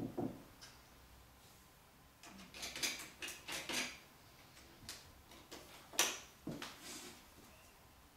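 Irregular small knocks, clicks and rustling of objects being handled on a desk, several in a quick cluster a little after two seconds in and one sharp click about six seconds in.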